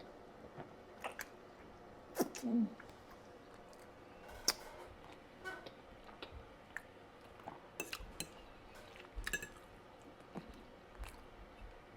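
Eating at a plate: scattered light clicks and taps of a fork against the dish, a few seconds apart, with a short closed-mouth "mm" about two and a half seconds in.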